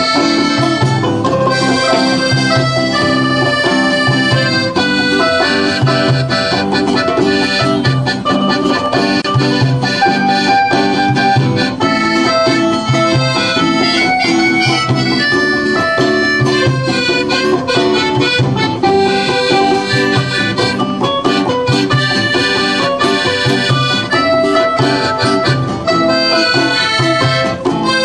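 Instrumental background music with held chords and a steady low beat.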